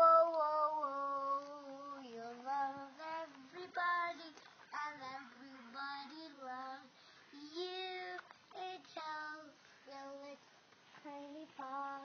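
A child singing a song alone without accompaniment, in short phrases with brief pauses between them.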